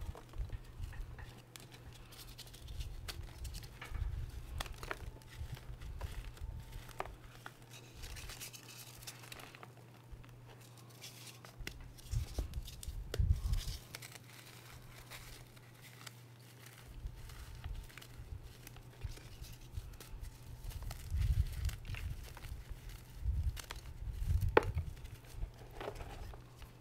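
Hands crushing and sifting crumbled reformed gym chalk and its loose powder: soft crunching and crumbling with irregular dull thumps, the loudest about halfway through and in the last few seconds.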